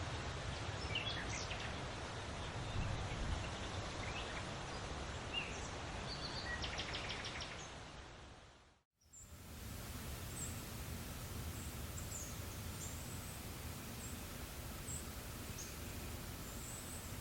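Forest ambience: a steady breeze with scattered bird calls, including a short rapid trill. About nine seconds in it fades out briefly and comes back with high, thin chirps over the breeze.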